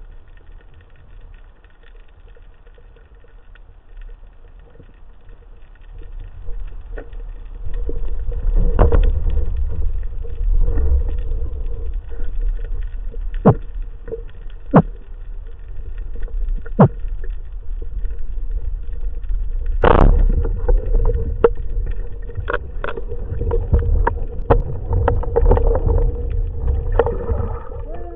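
Underwater sound picked up through a diving camera's housing: a low rumbling water noise that grows louder about six seconds in, with several sharp clicks and knocks, the loudest about twenty seconds in.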